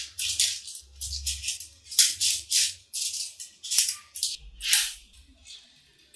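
Mini magnetic balls clicking and rattling against each other in a quick, irregular series of short bursts as rows of them are pressed and snapped together on a table, with a few low thumps of handling.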